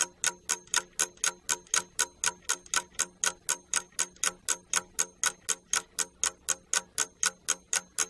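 A ticking-clock sound effect, about four even ticks a second, marking the time given to answer a quiz question.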